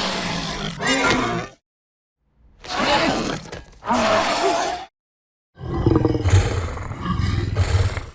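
Monolophosaurus roar sound effects, built mostly from pig vocalizations mixed with other animal growls: three separate bursts of roaring calls, each about one and a half to two and a half seconds long with dead silence between. The last burst is deeper and heavier than the first two.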